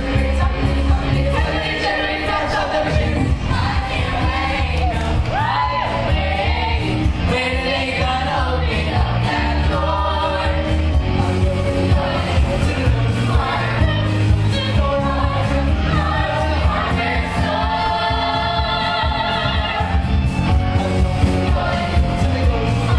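A youth glee group singing a pop song together over backing music with a steady, heavy bass line.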